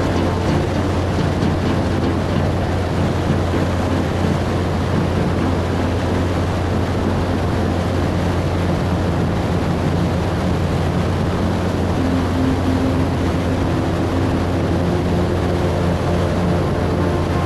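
Gyrocopter in flight: its engine and pusher propeller running at a steady cruise drone, with rushing wind from the open cockpit.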